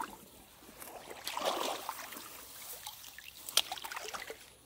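Water sloshing and trickling as it is stirred, with a louder swell of water sound about a second and a half in and a sharp click a couple of seconds later.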